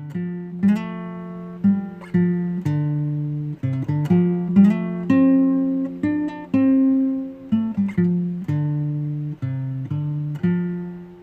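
Acoustic guitar music: a series of chords strummed one after another, each ringing and fading, with the last chord left to ring out near the end.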